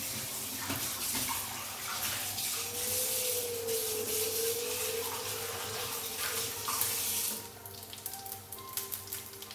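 Dried anchovies (ikan bilis) sizzling in hot oil in a frying pan, a dense steady hiss. A little over seven seconds in it drops to a quieter crackle with scattered pops.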